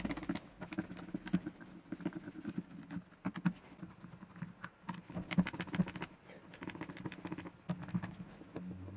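Screwdriver undoing the screws of a Bosch power drill's plastic housing: a run of small, irregular clicks and taps as the bit works each screw loose and the drill is shifted on the mat.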